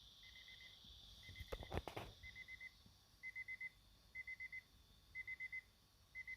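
Weather alert radio's alarm beeping faintly: quick bursts of four identical high beeps, repeating about once a second. A brief cluster of sharp clicks and knocks comes about one and a half seconds in.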